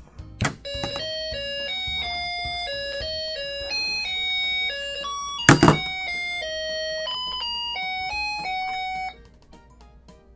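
A Snap Circuits music IC plays its simple electronic beeping tune through the kit's small speaker, set going by a tap on the baseplate that the whistle chip picks up as the trigger of the sound-activated switch. A loud knock sounds midway, and the tune cuts off about nine seconds in.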